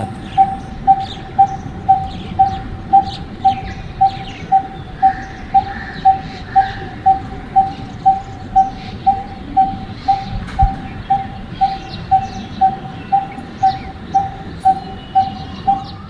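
Coppersmith barbet calling: a long, even series of hollow 'pung' notes on one pitch, about two a second, like a coppersmith hammering a copper sheet.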